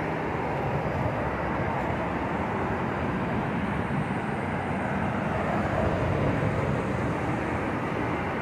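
Steady noise of street traffic, an even rush of passing cars.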